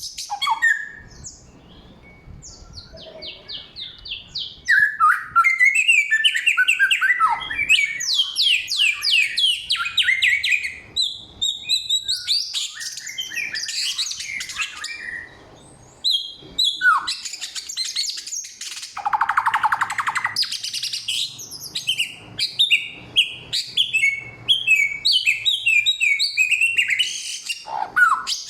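A samyong songbird singing loud and clear: a long, unbroken run of varied chirps, rapid trills and sweeping whistled phrases, the mimicked 'forest' repertoire its keepers prize.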